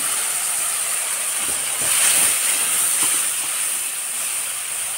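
Wet mustard-garlic-cumin-pepper paste sizzling and hissing steadily as it hits hot oil in a kadhai and throws up a cloud of steam, with a few faint knocks of a spatula stirring it.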